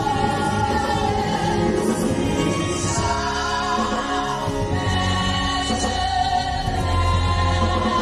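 A woman singing a French gospel hymn into a microphone over musical accompaniment, with long held notes.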